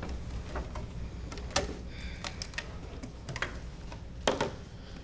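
About a dozen light clicks and knocks at irregular spacing, the loudest a knock about four seconds in, over a low steady hum.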